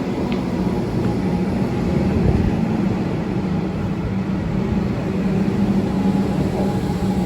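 Train running by: a steady rumble with a low hum.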